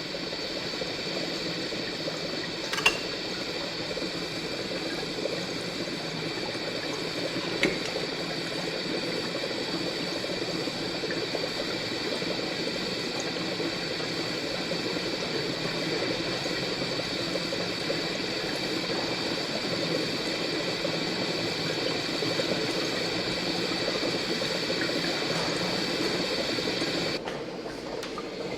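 Water boiling and bubbling in a laboratory, over the steady hiss of a gas burner. Two sharp clicks come about 3 and 8 seconds in. Near the end the high steady hiss cuts off suddenly.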